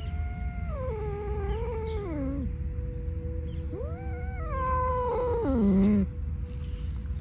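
A cat giving two long, drawn-out meows, each rising and then falling in steps. The second is louder and drops low at its end.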